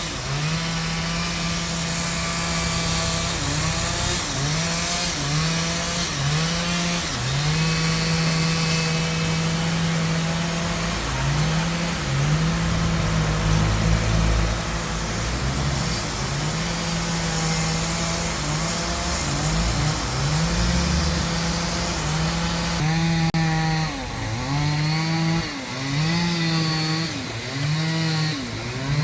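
Chainsaw running under load in wood, its engine pitch dipping and recovering again and again as the throttle and the cut vary.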